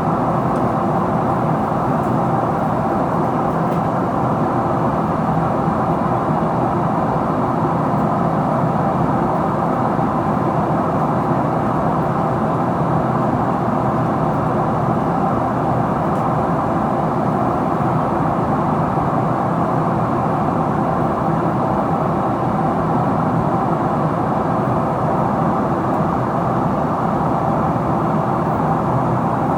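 Steady cabin noise inside a Boeing 777-300ER in descent: airflow past the fuselage and the hum of its GE90-115B engines, heard from a forward window seat. It runs evenly, without change.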